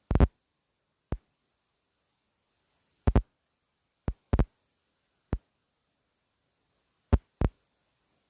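About eight short, dull thumps or knocks at irregular intervals, a few coming in quick pairs, with silence between them.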